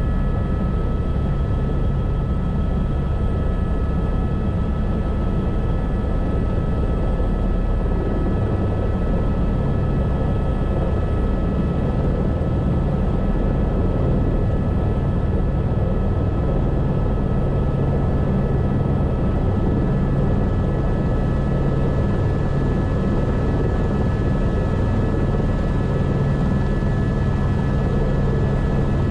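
Airbus AS350 B3 Esquilo helicopter running steadily, turbine and rotor together: a constant high whine over a deep drone, with no change in level.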